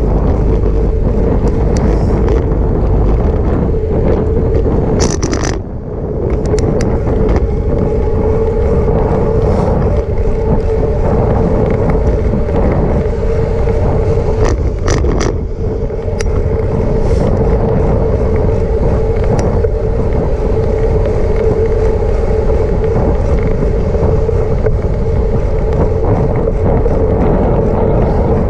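Wind buffeting the microphone of a camera on a moving bicycle, with a steady hum underneath and a few short knocks as the bike rolls over bumps in the path.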